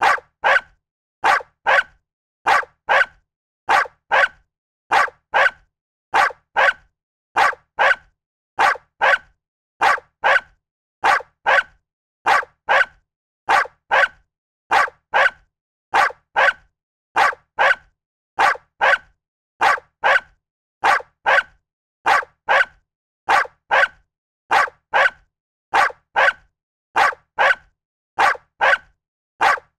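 A dog barking in pairs: a quick double bark about every second and a half, repeated evenly, with silence between.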